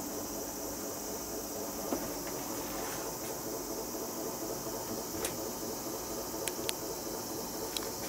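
Cicadas buzzing in a steady high-pitched drone, with a handful of short sharp clicks scattered through.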